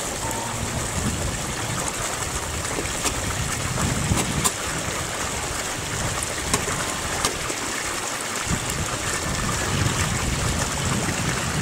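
Pond water splashing and stirring as large fish take food from a hand at the surface, over a steady rush of noise, with a few sharp clicks.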